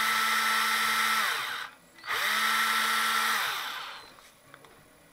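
Cordless power drill, its battery removed and running off a jump-starter battery pack through thin clip leads, its chuck spinning free: the motor runs steadily for about a second and a half, stops briefly, runs again for about a second and a half, then winds down and stops about four seconds in.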